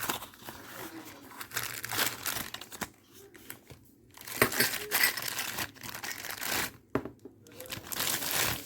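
Packaging being crumpled and torn open by hand: irregular bursts of crinkling and rustling, with two short pauses partway through.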